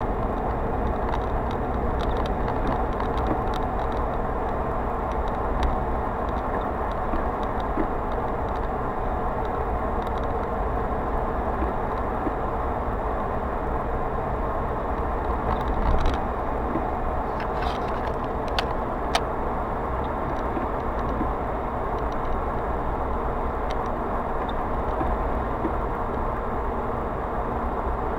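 Steady road and engine noise of a car driving at speed, heard from inside the cabin, with a few light ticks a little past halfway.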